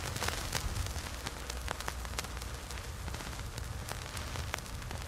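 Steady hiss with a low rumble underneath, broken by many irregular faint crackles and clicks.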